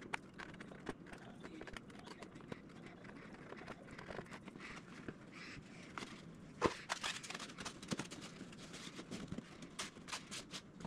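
Faint, scattered clicks and light taps from handling small parts on a balsa-wood model fuselage: a small metal flat hinge held with tweezers, then the balsa battery hatch fitted into its opening. The loudest, a single sharp click, comes about two-thirds of the way through, followed by a few more quick clicks.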